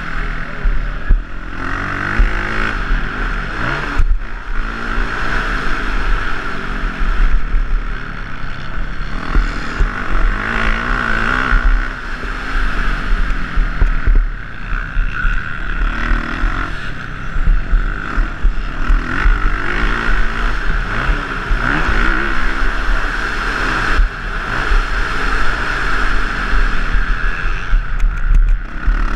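Motocross bike's engine heard from on board while racing, its revs rising and falling through the corners and straights, with short dips where the throttle is shut off.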